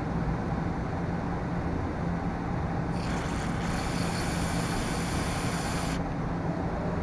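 Aerosol can of carburetor cleaner spraying into a carburetor emulsion tube: a hiss lasting about three seconds that starts about three seconds in and cuts off sharply, over a steady background hum.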